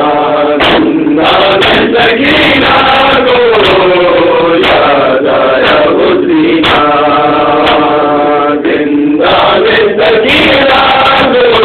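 A group of men chanting a noha, a Shia lament for Ali Asghar, in unison into a microphone, in long held lines whose pitch bends slowly up and down.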